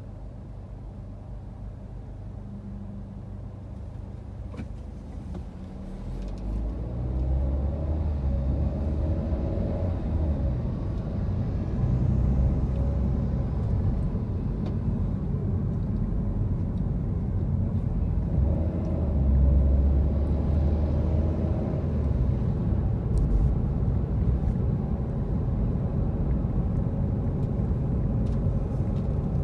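Car interior noise: a low engine and road rumble, quiet while the car stands in traffic, then growing louder about six seconds in as it pulls away and drives on, with a couple of stronger swells of rumble.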